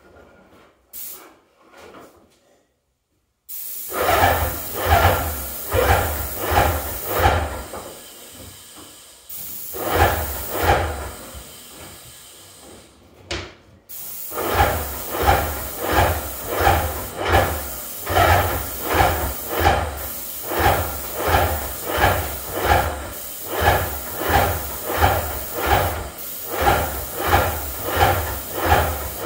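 Paint spray gun hissing as it sprays paint onto a door, with an even pulsing about one and a half times a second. It starts about three and a half seconds in and eases off for a few seconds in the middle before running again.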